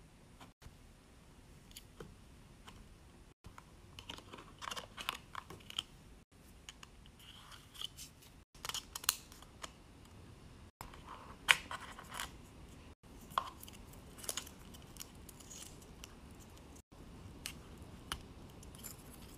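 Paper and cardboard packaging of a new iPhone box crinkling and crackling as it is unpacked by hand: the paper wrap inside the box is peeled and the paper-wrapped charging cable is handled. Scattered sharp crackles and taps are busiest from about four to fifteen seconds in, and the loudest is a sharp crackle a little past the middle.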